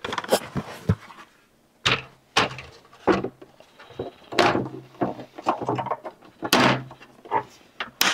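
Hard plastic parts of a robotic pool cleaner being handled and fitted together: a string of irregular clacks and knocks as the filter tray is seated and the body is set down and turned on the table.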